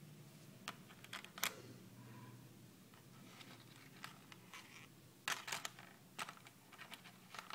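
Small clicks and taps of handmade steel fishing hooks being handled and set down on a tabletop, with a cluster of sharper clicks about five seconds in, over a faint steady low hum.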